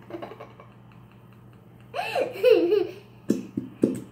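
A young girl giggling about halfway through, then a few short sharp squirts as she squeezes a plastic glue bottle.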